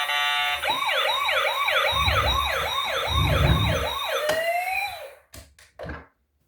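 Toy emergency vehicle's electronic siren giving a fast up-and-down wail, about two and a half sweeps a second, with background music and a thudding beat underneath. Near the end it changes to a single slower glide and cuts off, followed by a few short clicks.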